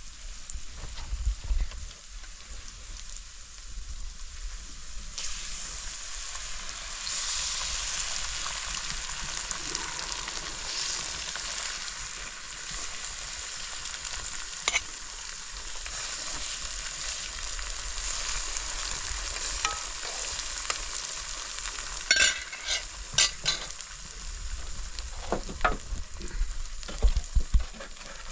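Food sizzling in a hot pan, a steady frying hiss that swells about five seconds in. Sharp clicks and knocks, like a utensil against the pan, come near the end.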